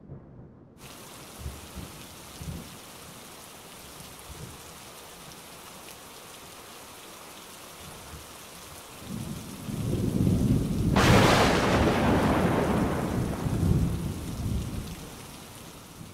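Thunderstorm: steady rain with a couple of faint thunder rumbles in the first few seconds, then a thunder rumble building about nine seconds in to a loud crack that rolls away and fades.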